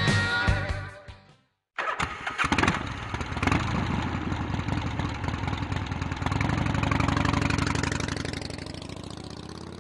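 Guitar music fades out in the first second. After a short silence, an engine starts abruptly and runs with a rapid pulsing beat, swelling a little, then fading out near the end.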